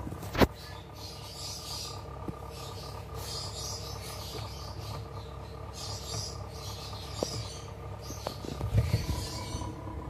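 Intermittent soft scratchy rasping and rustling from a cockatoo chick shifting in a plastic tub as it is handled, over a faint steady hum, with a sharp click about half a second in.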